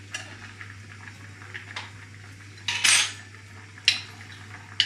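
Kitchen knife clinking and scraping against a small plate while cutting butter: a few separate clicks, with one longer scrape about halfway through.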